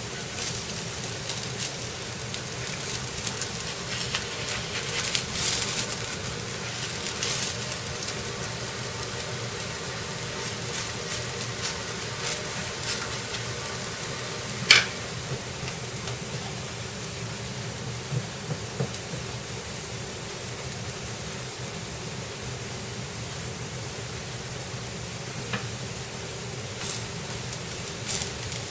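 Oil sizzling and crackling steadily under a sabudana paratha frying on a hot tawa, with bursts of crackle in the first several seconds and a single sharp click about halfway through.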